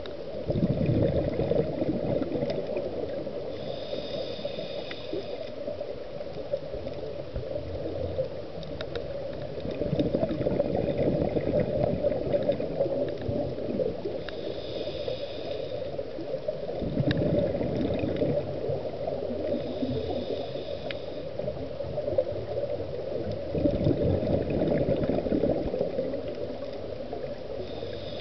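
Scuba breathing through a regulator underwater, recorded close by: a hissing inhale with a faint whistle, then a long burst of bubbling exhaust, about four breaths, one every six seconds or so, over a steady underwater wash.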